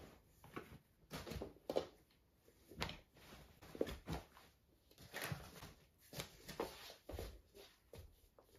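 Faint rustling of clothes and fabric, with soft knocks, as a soft suitcase is packed by hand, coming in short irregular bursts with a few sharper clicks.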